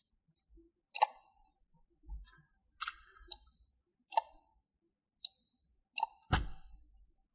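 Scattered sharp clicks of a computer mouse and keyboard keys, about seven in all, made while working in 3D modelling software. The loudest comes near the end and has a low thud.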